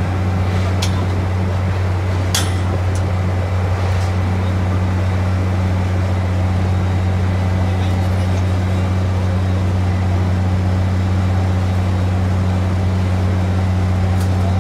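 Engine of an NTC track-laying machine running steadily, a constant low drone. A few sharp metallic clinks sound in the first few seconds.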